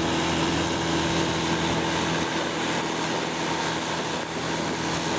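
Long-tail boat's engine running steadily at cruising speed, a constant low drone over a rushing hiss.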